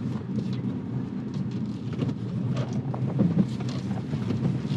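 Nissan Xterra's 4.0-litre V6 running steadily as the SUV climbs a dirt bank, with loose gear in the back rattling and knocking.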